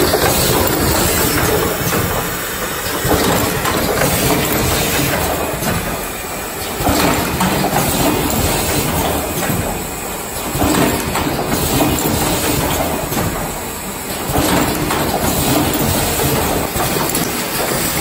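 Automatic power-cord crimping and plug-insertion machine running: a loud, continuous rattling clatter from its pneumatic stations and cable conveyor, swelling and easing in a cycle about every four seconds.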